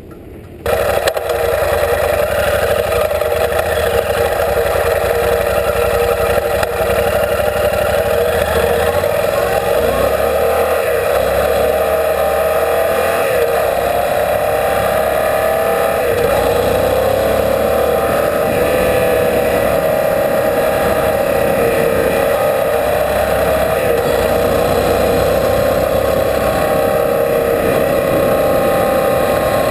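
Yamaha Super Ténéré adventure motorcycle riding on a gravel road: its engine running with tyre and wind noise, coming in abruptly about a second in and then holding steady, the engine pitch gliding up and down with the throttle.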